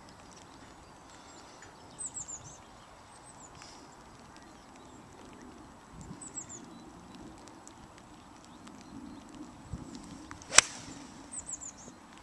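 A single sharp crack of a 5-iron striking a golf ball off the tee, about ten and a half seconds in, over a steady low wind rumble. A small bird chirps in short high bursts a few times before and just after the strike.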